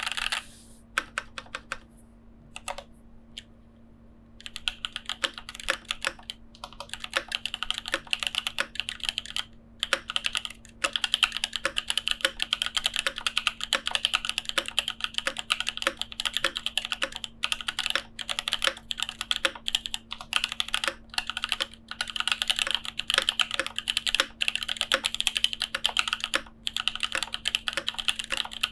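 Typing on an Ark 87 mechanical keyboard with lubed and filmed EV-01 switches and Aifei Mecha XO keycaps. A few separate keystrokes for the first four seconds or so, then fast, continuous typing with a couple of short pauses.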